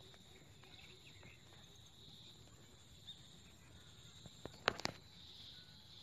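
Faint, steady insect chirring, a high even buzz. A few sharp clicks come near the end.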